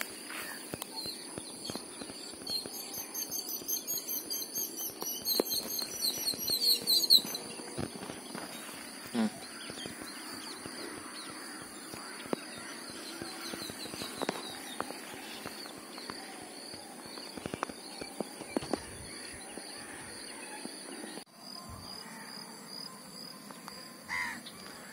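Steady high-pitched insect drone, with birds trilling and chirping for several seconds early on and occasional faint splashes and knocks of water.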